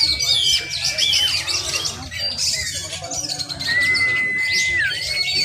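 Several caged oriental magpie-robins singing against each other at once: a dense tangle of fast whistles, warbles and chirps. Two long held whistled notes stand out, near the start and again about four seconds in, the second ending in a downward slide.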